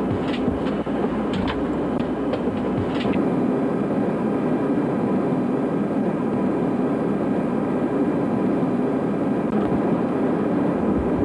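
Steady drone of jet airliner cabin noise, an even low rumble, with a few faint clicks in the first three seconds.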